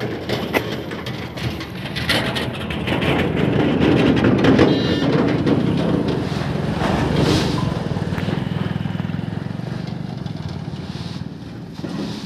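A motor vehicle's engine passes close by on the road, growing louder over the first few seconds, then slowly fading away.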